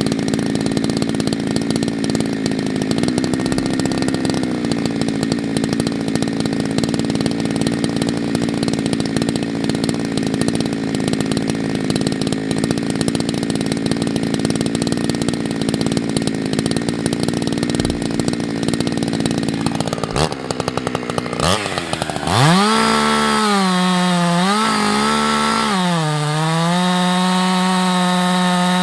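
Husqvarna 365 two-stroke chainsaw running at high revs in a long cut through beech. About 20 seconds in the engine note drops away and revs back up sharply. It then runs on louder, its pitch dipping twice with the throttle.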